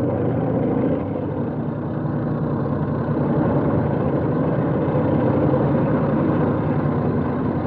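Engine and tracks of a small tracked military carrier, a Universal Carrier, running steadily along a street, heard dull and without highs on an old film soundtrack.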